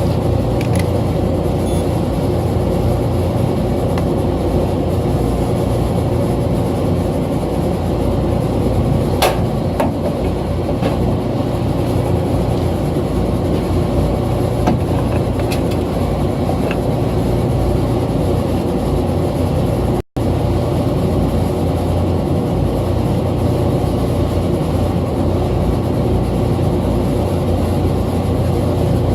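Steady low drone of running machinery with a constant hum, broken off for an instant about two-thirds of the way through, with a few faint clicks.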